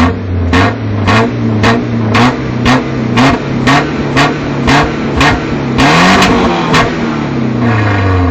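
Engine revved by pumping the throttle, in quick blips about twice a second, the pitch rising and dropping with each. A little past the middle comes one longer, higher rev, and near the end the engine is held at a raised speed.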